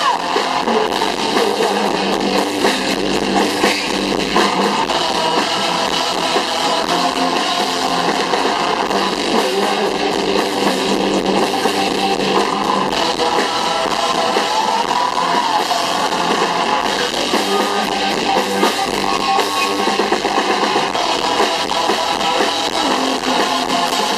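A live rock band playing a song on electric guitars and drum kit, loud and steady, with little bass.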